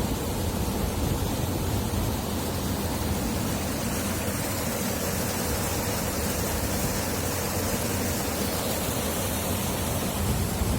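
Water-well drilling rig running steadily, a constant, even mechanical noise with a faint low hum running through it.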